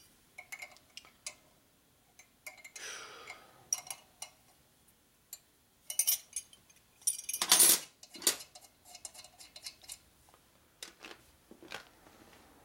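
Steel open-end wrenches clinking against each other and against the exhaust-stud nuts on a motorcycle engine: scattered sharp clicks and clanks, with a longer, louder clatter about seven and a half seconds in.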